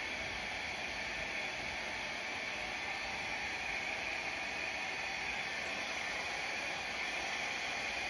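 Handheld blow dryer running, a steady rushing hiss of blown air that holds at one level throughout, used to push wet acrylic pour paint across the canvas.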